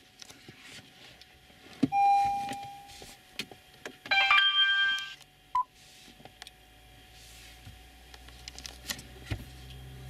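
Electronic beeps from the car's dashboard electronics and touchscreen head unit: a click and a one-second tone about two seconds in, then a short chime of several tones together about four seconds in and a brief beep after it, among light clicks of handling. A low steady hum comes in about six seconds in.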